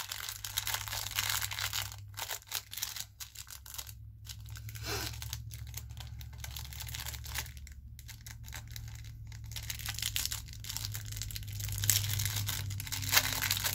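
Crinkling and rustling of jewelry packaging wrapping being handled and opened, in many irregular small crackles, over a low steady hum.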